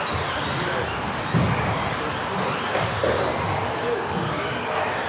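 Electric RC off-road racing cars of the modified class running on a sports-hall floor: high-pitched motor whine rising and falling as they speed up and slow down, with a thump about a second and a half in.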